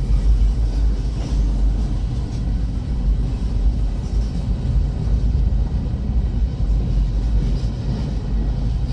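A very long freight train's cars rolling past a grade crossing: a steady low rumble of wheels on rail.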